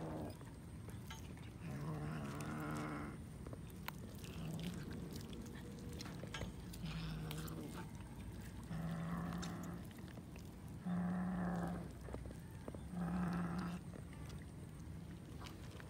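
A cat growling over food, a low steady growl repeated about six times, each about a second long. Faint chewing and tearing of chicken meat and bone is heard between the growls.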